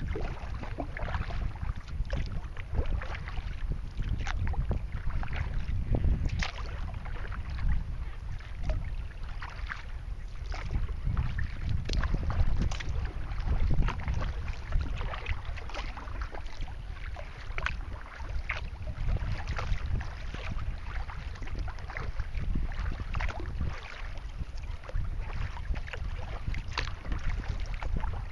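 Wind buffeting the microphone with a gusting low rumble, and choppy waves splashing against a kayak's hull in quick, irregular splashes.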